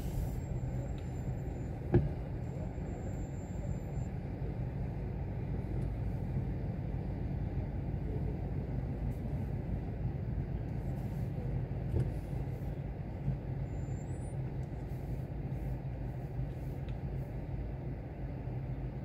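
Car engine and road noise heard from inside the cabin in slow city traffic: a steady low hum. A sharp click about two seconds in, and fainter ones around twelve seconds.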